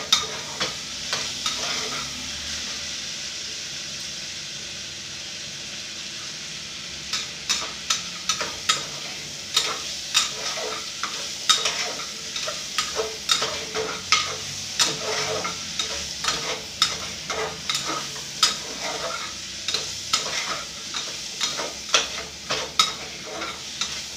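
Washed rice and dal frying with onion, tomato and spices in an aluminium pressure cooker, sizzling steadily while a metal spoon stirs and scrapes through it. The spoon clinks often against the pot, thinning out for a few seconds near the start before picking up again.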